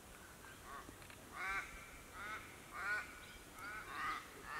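A bird calling repeatedly: about seven short calls in quick, uneven succession, the loudest a little over a second in, about three seconds in and near the end.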